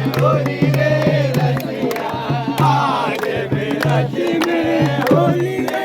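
A Holi rasiya folk song: a voice singing over a steady drum beat of about two strokes a second, with sharp percussion hits.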